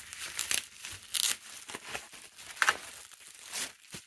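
Plastic bubble wrap crinkling and rustling as it is pulled open and peeled off by hand, in irregular bursts with a few louder crackles.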